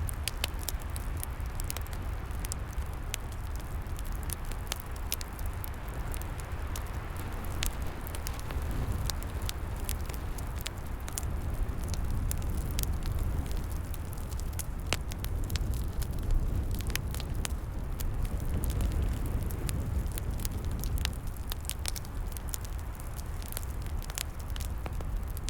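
Wood log fire burning, with frequent sharp crackles and pops over a steady low rumble and hiss.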